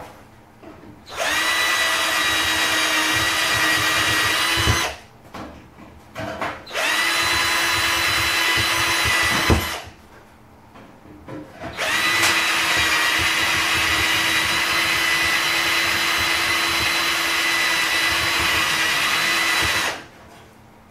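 Handheld electric drill drilling out blind rivets in a steel PC-case drive-bay frame, running in three bursts at a steady whine, the last about eight seconds long, with short pauses between them.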